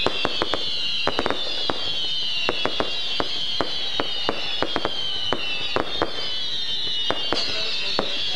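Festival fireworks going off by day: an irregular string of sharp cracks and pops, several a second, over a steady high whistle that slowly falls in pitch.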